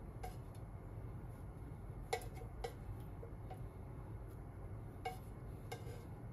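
Chopsticks clicking against a pan and rice bowls while teriyaki chicken is served: a handful of sharp, light clicks at uneven intervals, the loudest about two seconds in, over a steady low hum.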